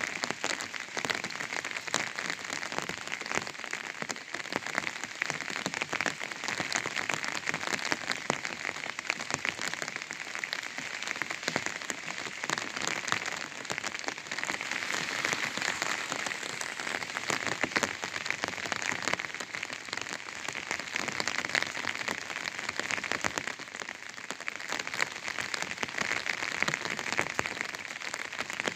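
Rain falling on an umbrella: a steady, dense spatter of many small drops hitting the fabric.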